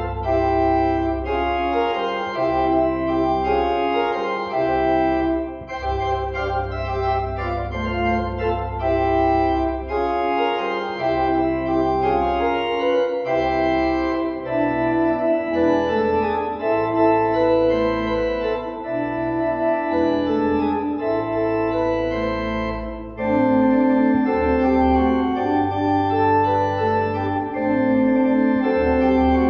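Organ music after the benediction, the postlude closing the worship service: sustained chords that change every second or so over deep bass notes.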